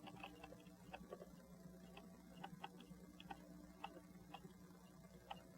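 Faint, irregular small clicks, about two a second, from work on an open pocket-watch movement on the bench, over a low steady hum.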